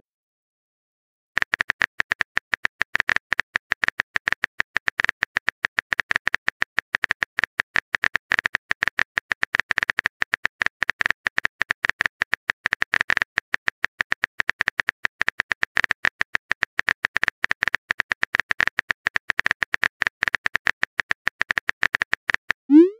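Rapid keyboard typing clicks from a texting sound effect: a fast, uneven run of sharp taps that starts about a second and a half in and stops just before the end.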